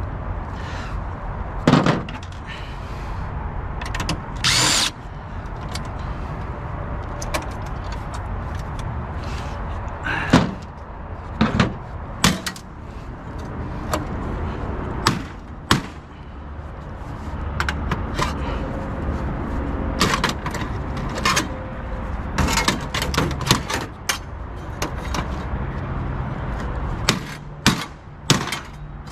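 Scattered clanks, clicks and rattles of tools on a printer's metal chassis and parts as it is taken apart, with one short burst of a power driver about four and a half seconds in. A steady low rumble runs underneath.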